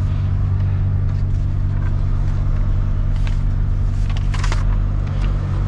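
Heavy truck's diesel engine idling with a steady low hum, with a few short rustles and clicks, the clearest about four seconds in.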